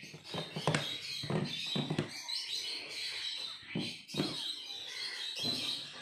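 Newborn kittens squeaking and mewing in many short, high calls as they are picked up by hand, with soft bumps from the handling.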